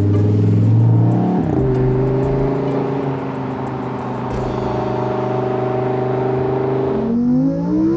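Lamborghini Huracán's V10 engine accelerating hard as the car passes. About a second and a half in, an upshift drops the pitch, then the engine holds a steady note as the car pulls away. Near the end the engine note climbs quickly again.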